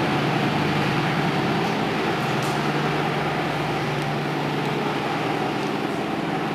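A steady low hum under a wide, even hiss, unchanging in level.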